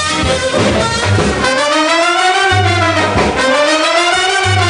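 Background music: brass instruments playing a gliding melody over a bass line.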